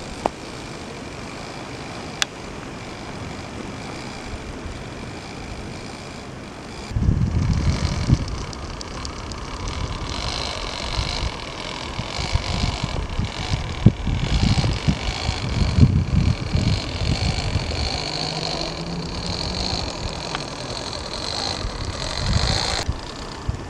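Small electric motor and geared transmission of a Losi Mini Crawler–based RC scale truck whining as it crawls through deep snow, louder from about ten seconds in. A low rumble sets in about seven seconds in.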